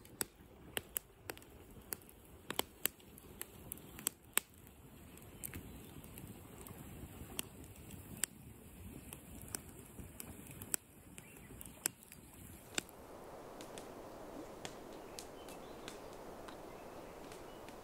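Faint, sharp clicks and taps at irregular intervals, about one or two a second, over a low hiss. Near thirteen seconds in they stop and give way to a soft, steady hiss.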